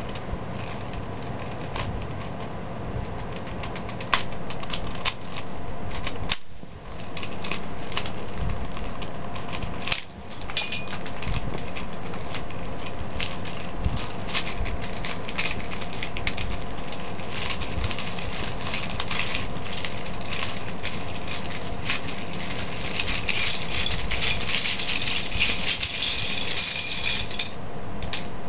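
Small plastic pieces of a 7x7 puzzle cube clicking and clattering as the cube is twisted and pulled apart, loose pieces rattling as they fall into a pile. The clicking is thickest near the end.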